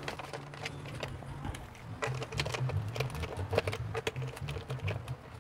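Irregular light clicks and taps of a plastic electric-fan stand pole and round base being handled and fitted together.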